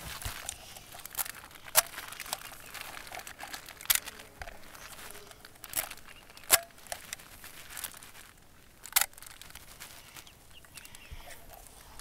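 A clear plastic bag crinkling as it is handled, with a few sharp crackles spaced a second or two apart.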